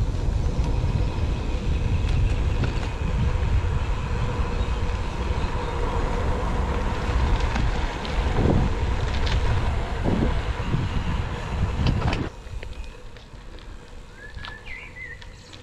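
Wind buffeting the microphone with road rumble from a bicycle ride at speed downhill, a faint steady whine running through it. About twelve seconds in it cuts off abruptly to a much quieter background, with a brief warbling chirp near the end.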